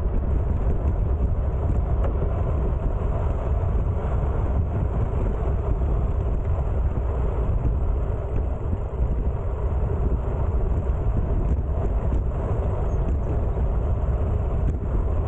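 Steady wind rumble on the microphone of a camera carried along on a moving bicycle, a deep even rush with no breaks.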